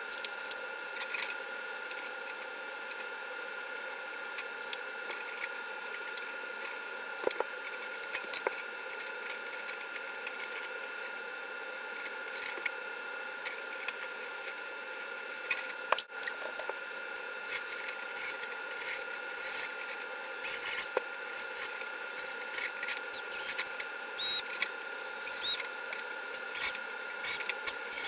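Scattered small clicks, taps and rustles of hands working a metal shelf mounting rail and its screws and metal drywall anchors against the wall, with one sharper click about halfway through. A steady faint high hum lies under it all.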